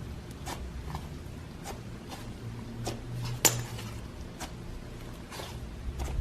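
Hands working slime, giving irregular sticky clicks and small pops, with one sharper pop about three and a half seconds in. A steady low hum runs underneath.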